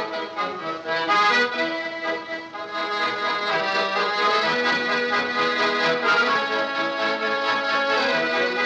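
Accordion music: a traditional tune played with melody and held chords together.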